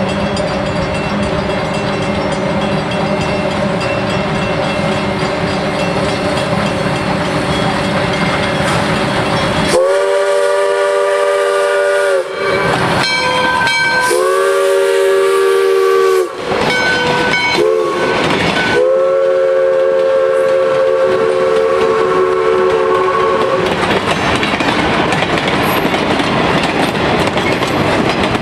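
Three-chime steam whistle of a Little River Railroad steam locomotive sounding as the train approaches, then blowing loud long, long, short, long blasts, the grade-crossing signal. After the last blast the passenger cars rumble and clack by over the rail joints.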